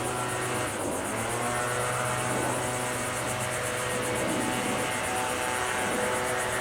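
An engine running steadily, a low hum that holds one pitch.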